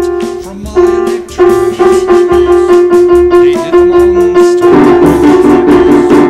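Upright piano being played: repeated notes in the middle register, then from about two-thirds of the way through a loud, dense cluster of many notes struck together.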